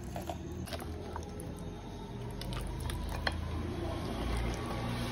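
Wet squishing of sticky, sauce-coated potato pieces being tossed with a silicone spatula and wooden spoon in a glass bowl, with scattered soft clicks of the utensils against the glass.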